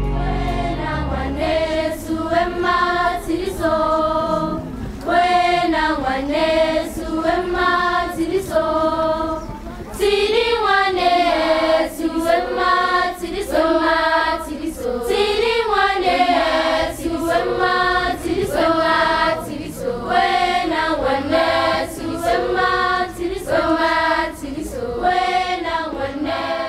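A choir of students singing together in harmony, in short repeated rhythmic phrases.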